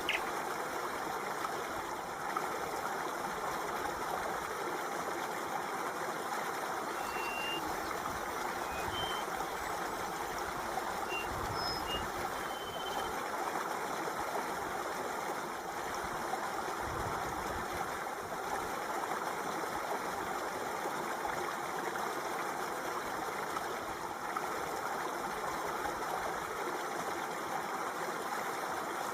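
Water flowing steadily, like a running stream. A few brief high-pitched chirps sound faintly between about 7 and 13 seconds in.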